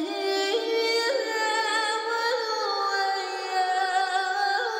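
Background music: a wordless high voice holding long notes that step up and down in pitch, with slight vibrato.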